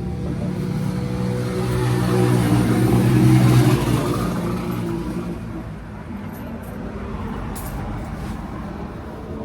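A motor vehicle driving past close by: its engine and tyre noise grow louder to a peak about three and a half seconds in, then fade away.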